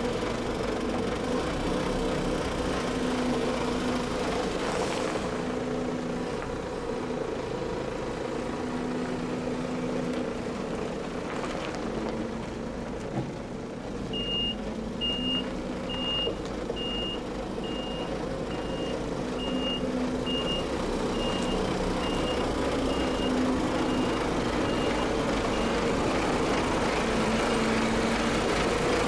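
Semi truck's diesel engine running steadily. About halfway in, the truck's reversing alarm starts beeping about once a second as it backs up, growing fainter until it fades out near the end.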